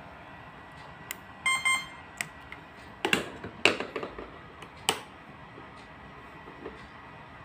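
A single short electronic beep, buzzy with several tones, about a second and a half in, then a few sharp clicks in the middle, over a faint steady hiss with a thin high whine.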